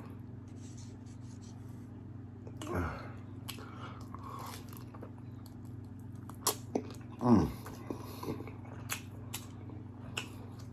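Close-up eating of a birria taco: chewing with wet mouth clicks, and two short vocal sounds falling in pitch, about three and seven seconds in, over a steady low hum.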